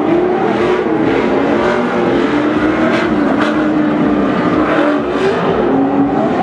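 Short-course off-road racing trucks' engines revving hard, the pitch rising and falling over and over as the trucks accelerate and back off.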